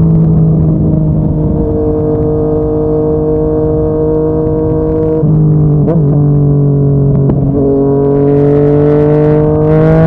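Yamaha MT-09's inline-three engine running through a Yoshimura R55 slip-on exhaust while the bike is ridden, holding steady revs. The pitch drops a little around the middle, with a couple of sharp clicks, then climbs slowly near the end.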